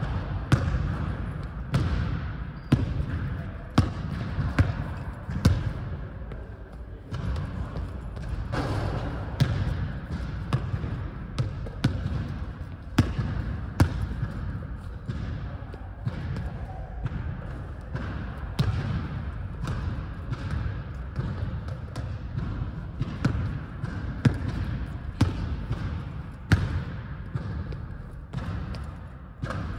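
Basketball bouncing on a hardwood gym floor, dribbled in short irregular series of single sharp bounces, over a steady low hum.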